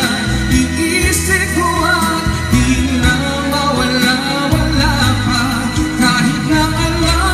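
A man singing into a videoke (karaoke) microphone over the machine's backing music, his voice carrying a wavering melody over steady bass.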